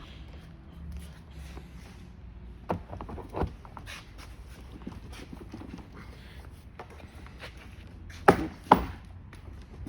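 Scattered clicks and knocks of parts being handled while fitting a washer and nut onto a wheel axle of an electric ride-on toy Jeep, with two louder knocks in quick succession near the end.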